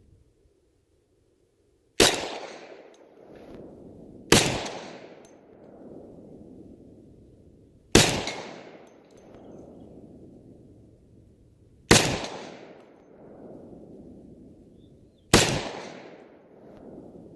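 Five shots from a Gen 4 Glock 40 10mm pistol, a few seconds apart. Each is followed by an echo that dies away over a second or two.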